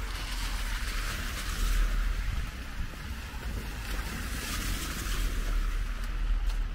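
Street traffic on a wet, slushy road: a hiss of tyres through slush that swells twice as vehicles pass, over a low wind rumble on the microphone.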